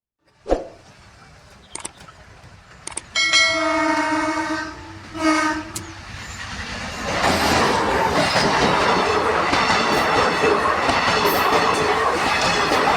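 A sharp knock, then a DEMU train horn sounds twice, a long honk and a short one. From about halfway through, the diesel-electric multiple unit runs past with a loud, steady rush of wheel and rail noise.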